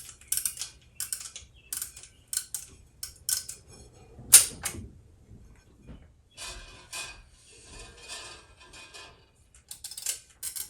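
Small metal parts of a Rock-Ola 449 jukebox's popularity meter clicking again and again as it is reset and worked by hand, with one much louder click about four and a half seconds in. A couple of seconds of scratchy rustling follow, then more clicks near the end.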